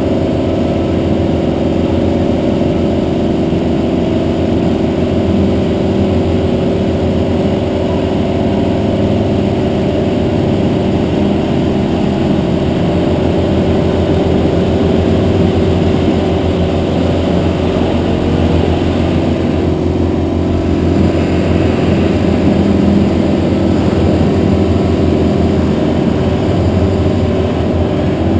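A ride-on laser screed's engine running steadily as the machine drags its screed head through wet concrete, a constant loud drone.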